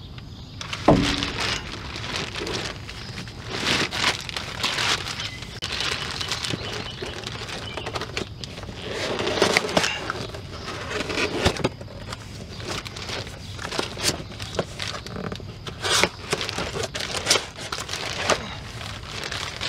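Plastic bag crinkling and rustling in irregular crackles as a new brake rotor is unwrapped from it and its cardboard box, with a thump about a second in.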